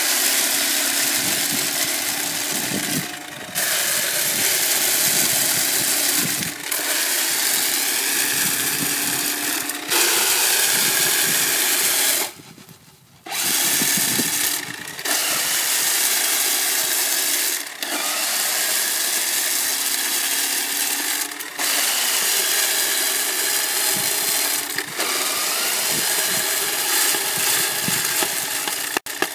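Minibatt battery-powered hand combine running as it threshes heads of malting barley: a steady motor-and-paddle whir that dips briefly every few seconds and cuts out for about a second near the middle.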